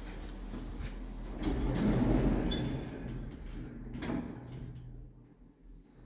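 Passenger lift's automatic sliding doors running, a rumble that swells about two seconds in and ends in a knock about four seconds in.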